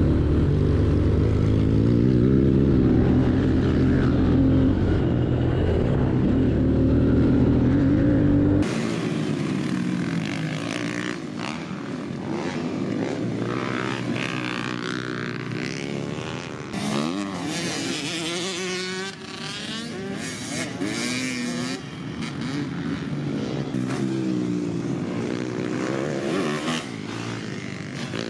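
Dirt bike engines running and revving. About eight or nine seconds in, the sound cuts abruptly from a close, deep engine note to a thinner one whose pitch rises and falls with the throttle.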